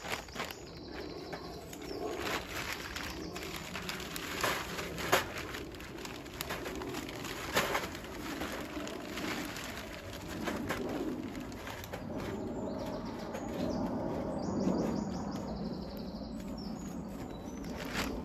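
A pigeon cooing repeatedly, with small birds chirping, while a charcoal bag rustles and a few sharp clicks come from charcoal being handled into a small portable barbecue.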